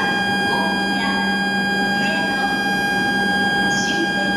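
Shinkansen platform departure bell: a loud, steady electronic buzzing tone held unbroken, warning that the train is about to leave. Faint voices and a low steady hum sit behind it.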